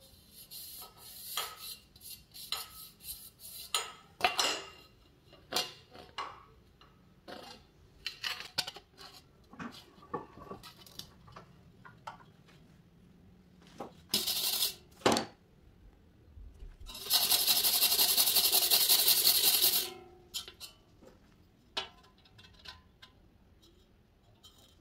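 Thin aluminium strip and tube being handled and set up in a steel bench vise: scattered light metallic clinks and taps, with a few seconds of steady metal-on-metal scraping about two-thirds of the way through, the loudest part.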